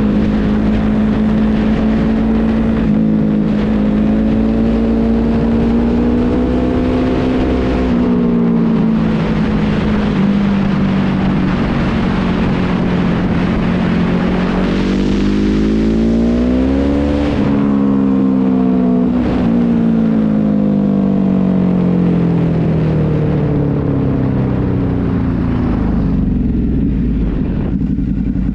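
A vehicle engine running hard while driving, its pitch rising and falling with the revs. It climbs to a peak past the middle, then falls steadily, over steady road and wind noise.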